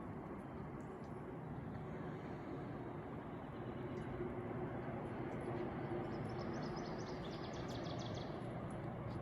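Steady outdoor rumble, with a bird's rapid trill of short high notes from about six to eight seconds in.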